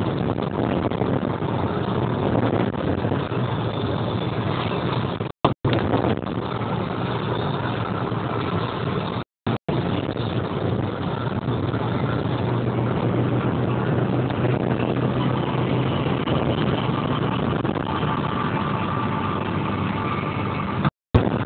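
Car driving along a patched tar road, heard from inside the cabin: steady engine hum and tyre and road noise. The sound cuts out completely for a moment three times.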